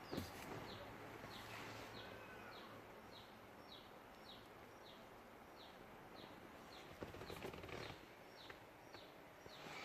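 Faint, short, high chirps repeating evenly about twice a second, typical of a small bird calling, with a single knock just after the start and a brief rustle about seven seconds in.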